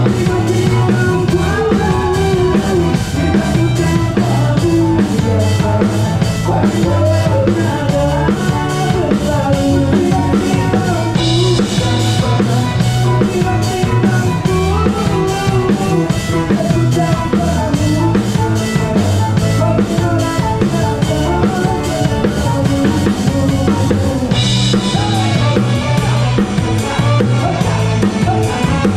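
Live band playing a song, heard close from the drum kit: bass drum, snare and cymbals loudest over bass and a melodic line. The cymbals brighten about eleven seconds in and again near the end.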